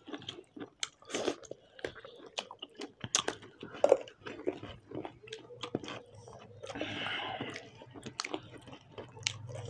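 Close-up eating sounds: people chewing rice and chicken curry eaten by hand, with many irregular wet mouth clicks and smacks. A faint low hum comes in near the end.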